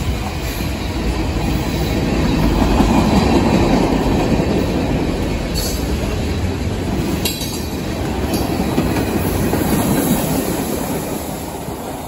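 Freight train cars rolling past close by: a steady heavy rumble of steel wheels on the rails, with a few brief sharp sounds from the wheels about six, seven and eight seconds in. It eases off near the end.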